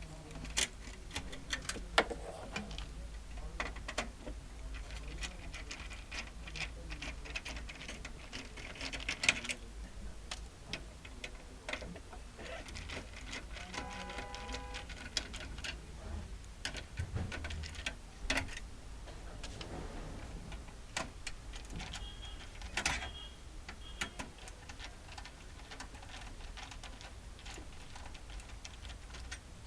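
Irregular clicks and light taps of plastic and metal printer parts being handled during a repair, over a steady low hum.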